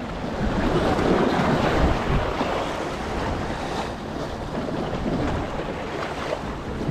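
Sea waves washing over jetty rocks, with wind buffeting the microphone.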